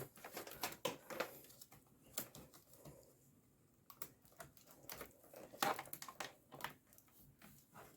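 Light plastic clicks and rustles of a laptop power cable being handled and connected, faint and irregular, with a couple of sharper clicks a little under six seconds in.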